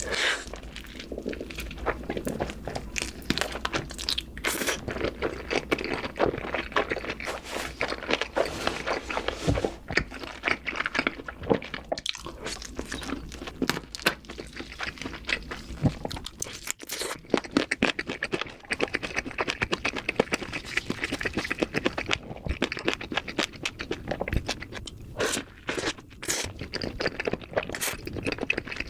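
Close-miked chewing of a burger: a continuous run of moist crunches and mouth sounds with an occasional sharper bite.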